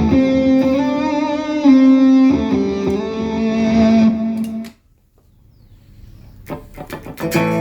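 Electric guitar playing a lead line through a computer amp-modelling rig with a wah lead preset, with held notes that waver in pitch. The playing stops about two-thirds of the way in, a few sharp clicks follow, and notes start again near the end.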